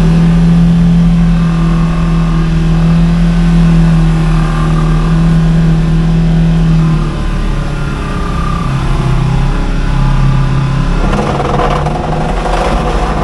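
Segway Villain side-by-side's engine running under way off-road. It holds one steady pitch, drops lower about seven seconds in as the throttle eases, then rises and falls again.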